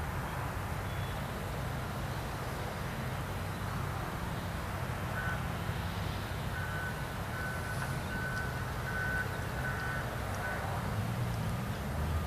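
Hitachi excavator's diesel engine running steadily under work. About halfway through, a backup alarm sounds a string of short high beeps, roughly two a second, for about five seconds.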